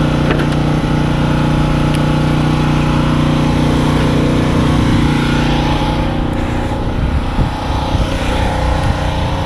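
A motor running steadily with a constant low hum, one of its hum tones dropping out about six seconds in; a few light knocks of handled tools near the end.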